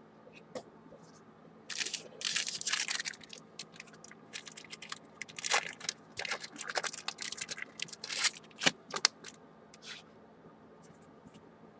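Foil trading-card pack wrapper crinkling and tearing open, with the cards inside being handled. A dense burst of crinkling comes about two seconds in, followed by scattered crackles and clicks between about five and nine seconds.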